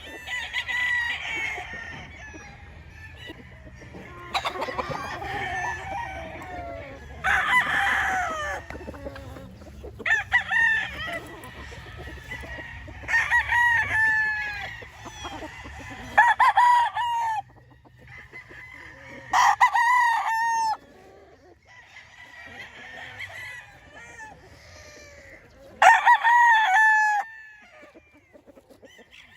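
Roosters crowing one after another, about eight or nine crows of varying loudness spaced a few seconds apart; several cut off abruptly.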